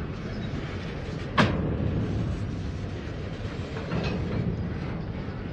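Freight train boxcars rolling past on the rails, a steady low rumble of wheels, with one sharp bang about a second and a half in.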